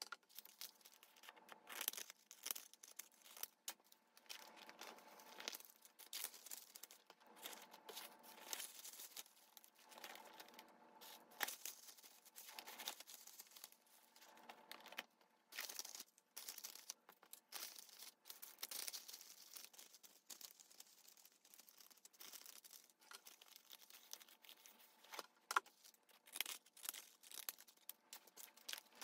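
Paper packaging rustling and crinkling in short, irregular bursts as white paper bags and thin wrapping paper are handled and folded, with one sharper crackle near the end.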